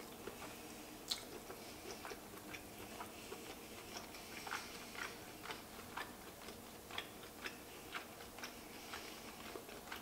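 Close-up chewing of lobster meat: faint, wet mouth clicks about twice a second.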